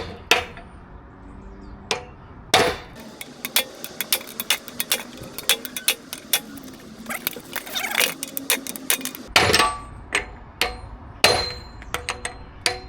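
Irregular hammer strikes and metallic clinks on steel car suspension parts, with a dense patter of light knocks through the middle and a few heavier blows, as a stuck rear hub and trailing arm are worked loose.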